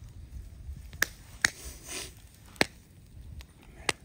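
Four sharp clicks at uneven intervals over a low background rumble.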